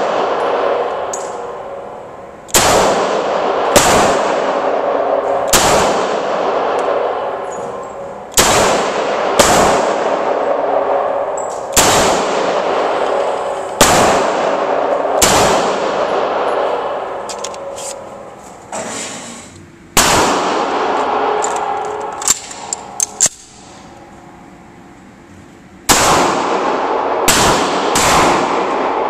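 Pistol gunshots in an indoor range, about a dozen fired singly at irregular gaps of one to a few seconds, each followed by a long echo off the range walls. About three-quarters of the way through come a few light, short, sharp sounds and a lull, then three more shots near the end.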